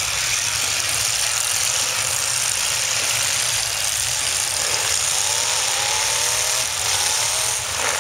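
Engines of demolition derby cars running in the arena, a steady rumble under a loud hiss. About halfway through, an engine revs up several times, its pitch rising.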